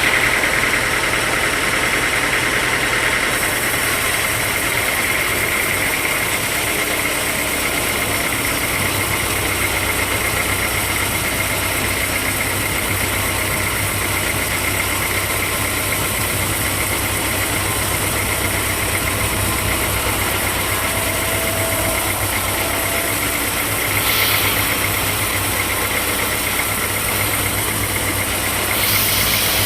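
Sawmill machinery running steadily, a continuous mechanical drone with a held high note, with two brief louder hissing surges, one late on and one near the end.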